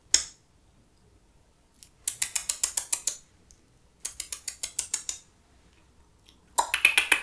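Lip smacking, demonstrated with the mouth: one single smack, then three runs of rapid wet mouth clicks, about ten a second, each run lasting about a second.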